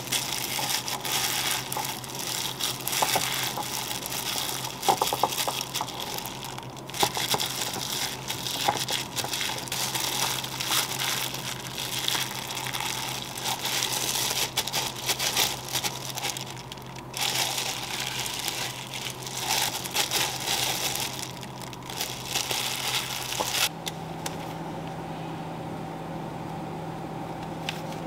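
Gloved hands mixing and squeezing a raw salmon burger mixture and shaping it into patties: the thin plastic glove crinkles and the mixture squishes, in irregular bursts. This stops about 24 seconds in, leaving a steady low hum.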